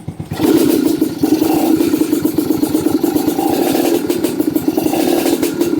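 Electric starter on a Kawasaki Ninja trail-bike engine cranking briefly, then the engine catching and running steadily with some mechanical clatter. The start shows the newly fitted starter working.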